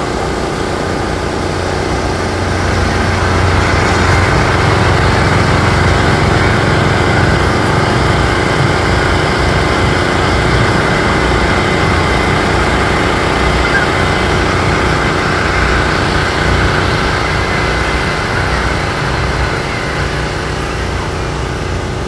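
Engine of a trackless kiddie train ride running steadily as the train drives past, growing louder a few seconds in and then slowly fading.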